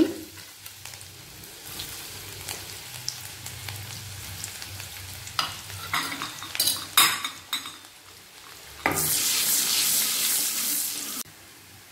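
Chopped garlic frying in hot oil and butter in a nonstick kadai, sizzling steadily, with a wooden spatula stirring and scraping the pan. About nine seconds in the stirring and sizzling turn louder for a couple of seconds, then stop abruptly.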